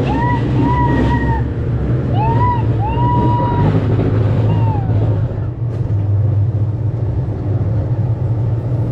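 Steady low rumble of a passenger train running. In the first five seconds several high tones rise, hold and fall.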